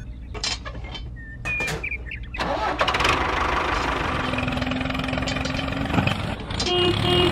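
A few clicks and knocks as a small metal roller is set onto a toy trailer. About two and a half seconds in, an engine starts and then runs steadily while the homemade miniature tractor pulls away.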